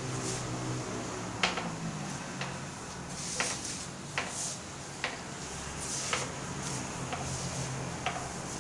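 Balls of a mini tabletop pool table clicking and knocking as they are placed and struck, about seven sharp clicks spaced roughly a second apart.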